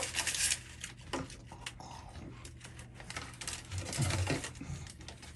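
Close-miked eating and food-handling sounds: irregular small crisp clicks and crackles, densest in the first half second.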